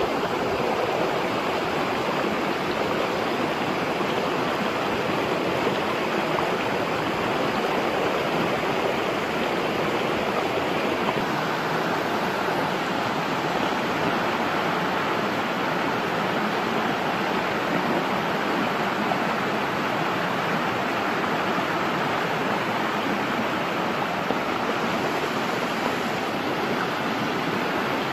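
Rocky stream rushing over small cascades: a steady, even rush of water.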